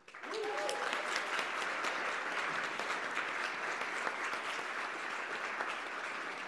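Audience applauding, starting suddenly and holding steady, with a brief call from someone in the crowd near the start.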